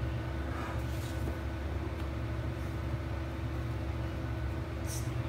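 Steady low hum, with faint scraping of a utensil stirring dry flour in a glass bowl and a brief scratch near the end.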